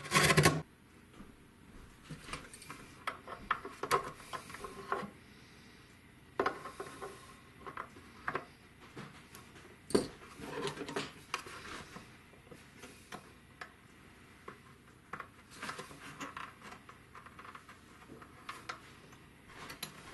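Hand-tool work on wood: a chisel scraping and levering out a small mortise, loudest in a short crunching scrape at the very start, followed by scattered light scrapes, taps and clicks as a brass lock plate is fitted into the slot and handled.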